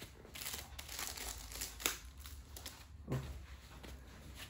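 Crinkling and crackling of a grip wrap being pulled and wound around a fishing rod handle, with several sharper crackles and a light knock about three seconds in.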